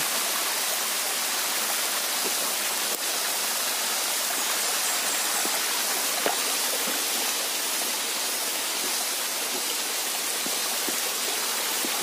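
Small mountain stream trickling and splashing down over rocks: a steady, even rush of water.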